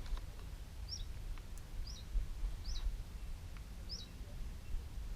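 A small bird repeating a short, high chirp, four times about a second apart, over a low steady rumble.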